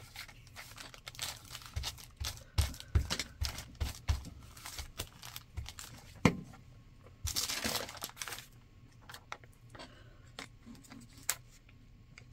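Brown paper and magazine cutouts crinkling and rustling as they are handled and pressed onto a page, in a run of small crackles and taps, with a longer rustle of about a second about seven seconds in.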